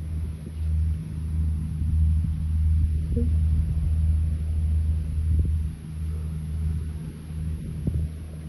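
Wind buffeting the phone's microphone: a low rumble that swells and dips with the gusts.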